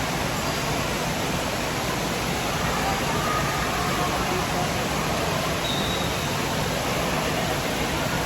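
Steady rushing noise of an indoor water park, with water pouring and splashing and a faint din of distant voices, holding an even level throughout.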